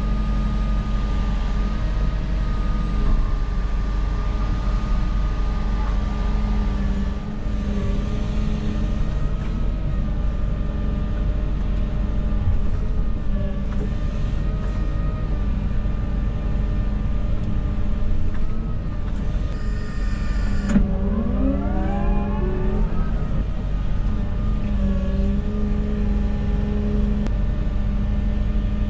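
Construction machine's engine running steadily, with a rising whine as it speeds up about 21 seconds in.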